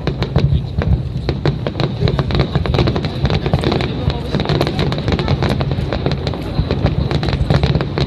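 Aerial fireworks bursting in a dense, continuous barrage: rapid overlapping bangs and crackles, several a second, over a heavy low rumble.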